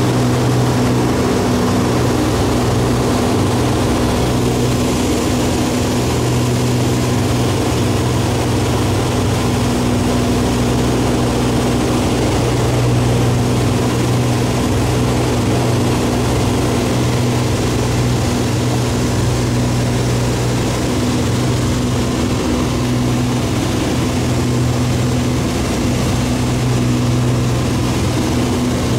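Light propeller aircraft's engine and propeller droning steadily in cruise, heard from inside the cockpit, with a constant low hum and rushing air noise.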